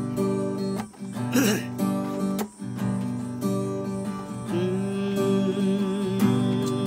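Stagg SA30ACE steel-string acoustic guitar being strummed, chords ringing on as the song's instrumental introduction. The playing breaks off for a moment twice in the first few seconds.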